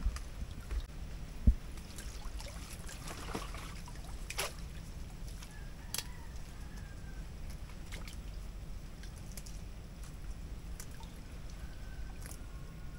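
Muddy water sloshing and trickling as a person wades and works his hands through it, with a single low thump about a second and a half in and a few light clicks.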